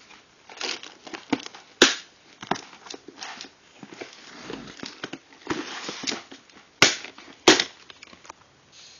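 Plastic crinkling and rustling from a clear plastic carrying case of bagged die-cast toy cars being handled and tilted, with a few sharp plastic clicks and knocks.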